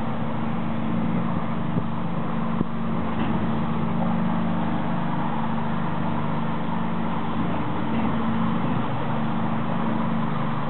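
Lake passenger ship's single 265 kW diesel engine running steadily at low speed, heard on board as a low, even hum of a few steady tones over a rushing haze.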